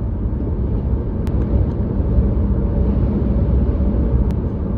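Vehicle driving at highway speed: a steady low road and engine rumble, with two faint clicks, one about a second in and one near the end.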